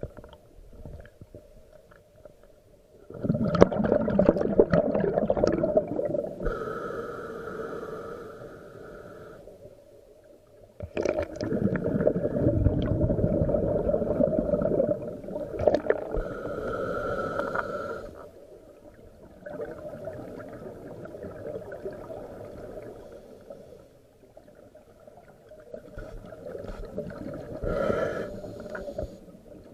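Scuba regulator breathing heard underwater: long bursts of rumbling, gurgling exhaled bubbles every seven or eight seconds, with a higher hiss between some of them.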